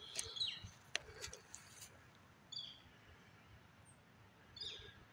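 A bird giving short, faint high chirps, about three times, one of them a quick falling note near the end. A few sharp clicks about a second in, like steps in dry leaf litter.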